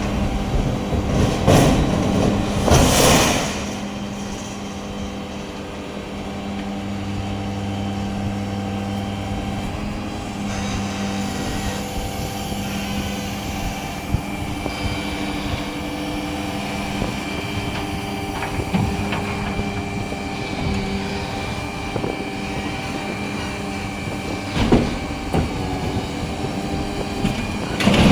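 Steady vehicle engine hum with several held tones, with a louder noisy pass about three seconds in and another at the end.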